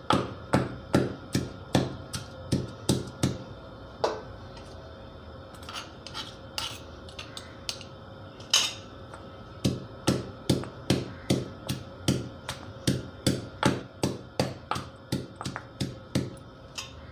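Stone pestle pounding garlic and green chilli in a stone mortar: a steady run of sharp thuds, about two to three a second. The strikes thin out to a few scattered ones for several seconds in the middle, then pick up again at the same pace.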